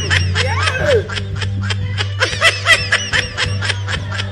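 Snickering laughter, a quick steady run of short 'heh' sounds at about four a second, over background music with a steady low hum.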